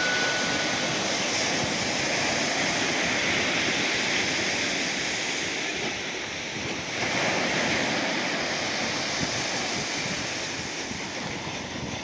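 Sea surf washing onto a sandy beach, a steady rushing noise of breaking waves, with a louder wave surging in about seven seconds in.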